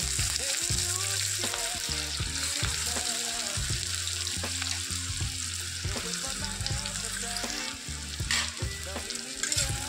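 Chopped onion frying in hot mustard oil in a kadai, a steady sizzling hiss.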